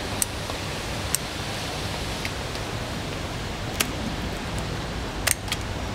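Kitchen scissors snipping through the shell of a grilled mantis shrimp: several sharp snips at irregular intervals, the loudest a little after five seconds in, over a steady background hiss.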